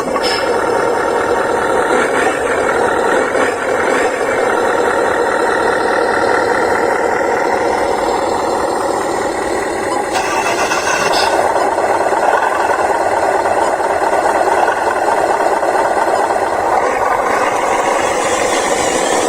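Small motors of RC construction-model vehicles running steadily, with a dense whine that shifts in pitch about halfway through and again near the end.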